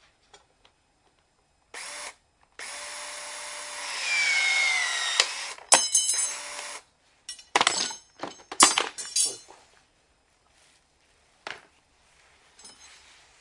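Makita SC101DRF cordless threaded-rod cutter: a brief motor blip, then the motor runs for about four seconds, its pitch sagging under load as it shears a threaded rod, with sharp snaps as the cut goes through. Several metallic clanks follow.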